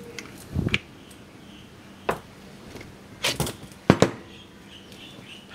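Handling knocks and clicks from a cordless angle grinder fitted with a chainsaw attachment as it is turned over and set down on a wooden table. There are about five sharp knocks, the loudest about four seconds in, and the motor is not running.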